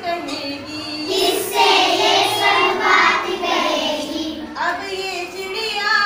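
A class of young children singing a Hindi poem together in unison, in a sing-song rhythm.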